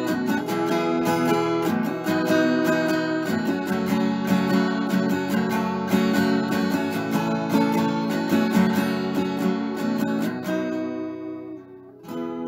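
Background music of strummed acoustic guitar, which fades down briefly near the end before starting again.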